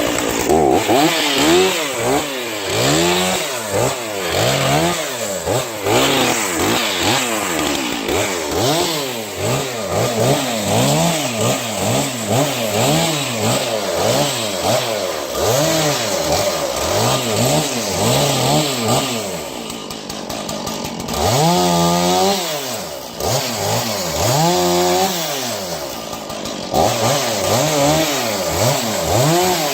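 Two-stroke chainsaw revving up and down over and over, about once a second, as it cuts down brush to clear an escape path.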